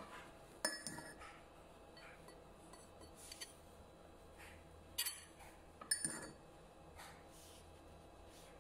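Metal spoon clinking against a ceramic plate while scooping fried rice: several sharp clinks with a short ring, the loudest about five and six seconds in.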